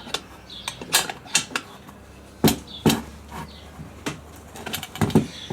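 Irregular clicks, knocks and small creaks of a part being worked by hand onto a Honda CT110 motorcycle, about a dozen unevenly spaced taps.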